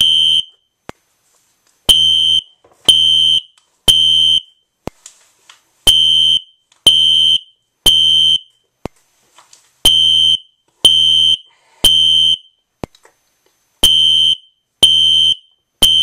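System Sensor SpectrAlert Classic fire alarm horn sounding the temporal-three evacuation code: three loud, steady, high-pitched blasts about a second apart, then a short pause, repeated. Sharp ticks about once a second come from its strobe flashing. The horn is set on low volume and is still pretty loud.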